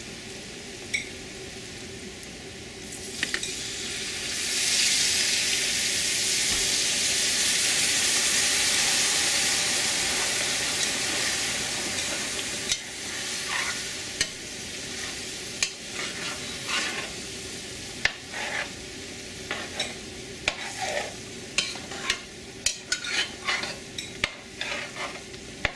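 Water poured into a hot pot of browning gar fish meatballs and gravy: a loud hissing sizzle swells a few seconds in and slowly dies away. After that, a metal spoon scrapes and clicks against the pot as the meatballs are stirred.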